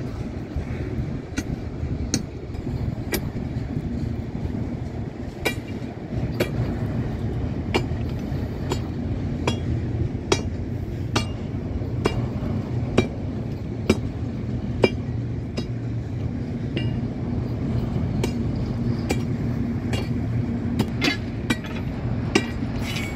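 Ferrosur freight train rolling through a rail diamond crossing: a steady rumble, with sharp metallic clanks about once a second as the wheels strike the crossing's rail gaps, and a quicker run of clanks near the end.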